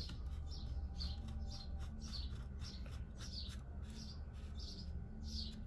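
Short high-pitched chirps repeating about twice a second over a low steady hum, with a few faint clicks.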